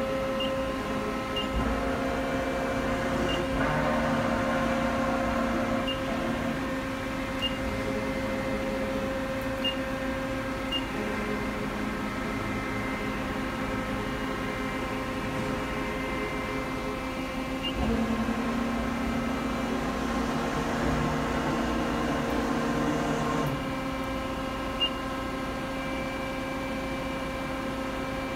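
Mori Seiki SL-65A CNC lathe running its turret slide through its axis travels: a steady mechanical hum and whine that changes pitch and level as each move starts and stops. A louder stretch begins about 18 seconds in and cuts off about 23 seconds in.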